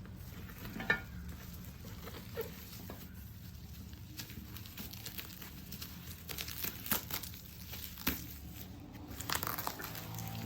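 Packaging being handled during unboxing: plastic wrapping crinkling and rustling, with scattered light clicks.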